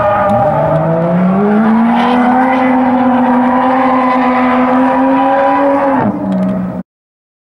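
A drift car's engine revs up, then holds steady at high revs while the car slides sideways, with tyre squeal under it. About six seconds in the revs drop, and the sound cuts off suddenly near the end.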